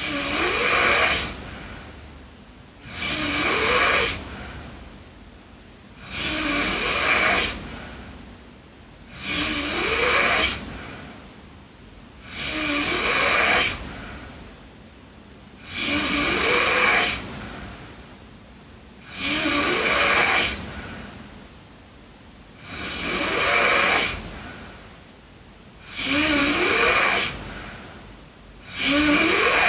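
A sleeping girl snoring in a slow, regular rhythm, about one snore every three seconds. Each snore lasts about a second and a half and rises in pitch.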